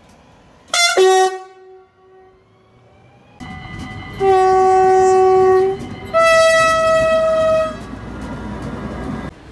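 Train horn: a short blast about a second in. Then, over the rumble of a passing train, a long two-tone call: a lower note held for about a second and a half, then a higher note for about as long.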